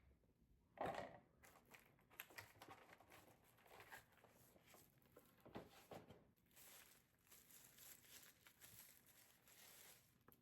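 Faint rustling, crinkling and small knocks of packaging being handled as a mechanical keyboard is unboxed, with a slightly louder rustle about a second in.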